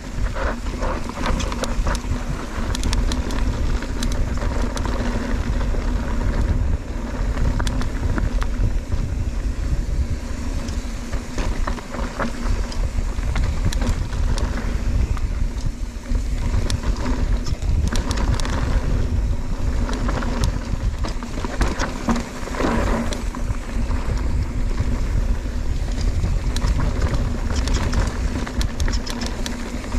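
Mountain bike being ridden fast down a rough dirt trail: wind rumbling on the camera microphone, with tyre noise and the bike clattering over bumps.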